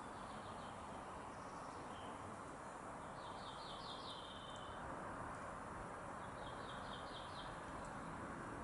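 A small songbird singing short phrases of rapid, evenly spaced high notes three times, over a steady background hiss.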